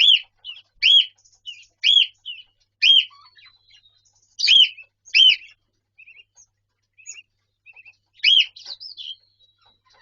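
Cockatiel whistling: a short, loud arched note repeated about once a second, with softer chirps between. Near the middle there is a stretch of only faint chirps before one more loud whistle.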